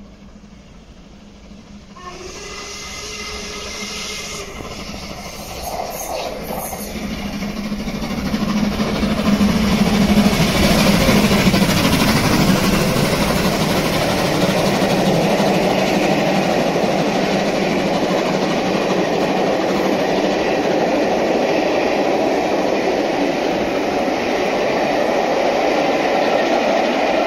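LMS Jubilee class three-cylinder 4-6-0 steam locomotive 45596 Bahamas approaching and running through at speed with a train of coaches. The sound builds steadily and is loudest about ten seconds in as the engine passes, then gives way to the steady rumble and clatter of the coaches' wheels on the rails.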